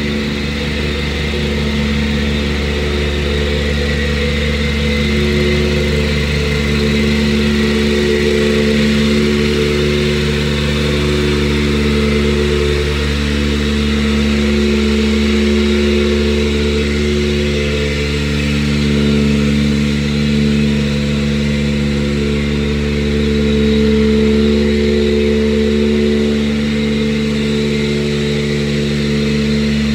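Excavator's diesel engine running steadily at an even speed, heard close up from on the machine.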